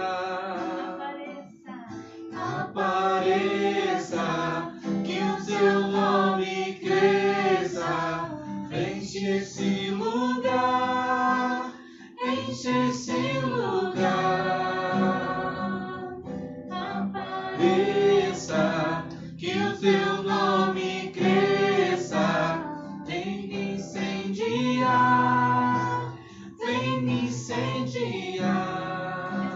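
Voices singing a worship song together, a woman's voice leading, with acoustic guitar accompaniment.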